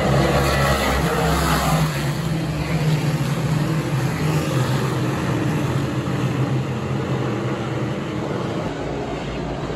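Small-block dirt modified race car engines running hard as a field laps the track. They are loudest for the first couple of seconds, then ease off a little as the cars pull away.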